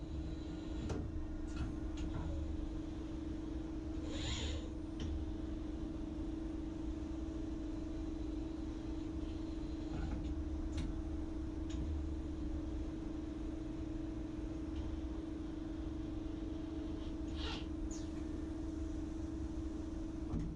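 Okuma LB3000 EX II CNC lathe with its built-in ARMROID robot arm running: a steady machine hum over a low rumble. A few sharp clicks and two short hisses break in, about four seconds in and again near the end.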